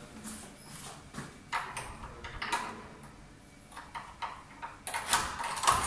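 A room door being unlocked and opened: a series of clicks and knocks from the lock, handle and door, busiest near the end.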